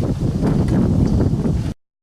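Wind buffeting the microphone, a loud, choppy low rumble that cuts off abruptly near the end.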